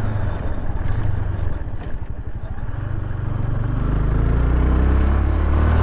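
Honda CB 300R's single-cylinder engine running under way as the motorcycle is ridden, a steady low engine note with road noise. It dips about two seconds in, then grows louder and stronger through the second half.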